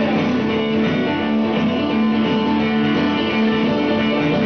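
Loud music with guitar, playing without a break.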